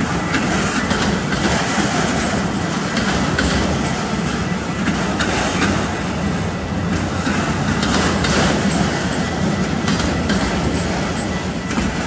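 Freight train of autorack cars rolling past: a steady rumble of steel wheels on rail, with repeated clacks as wheels cross rail joints.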